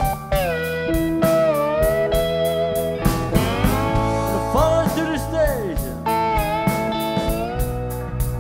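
Live blues band playing: an electric guitar lead with bent and sliding notes over the drums.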